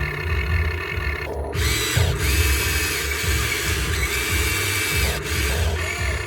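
Small electric motors of a Huina 1592 radio-controlled excavator whining as they run, starting and stopping several times with a short rise and fall in pitch each time. Background music with a steady bass beat plays throughout.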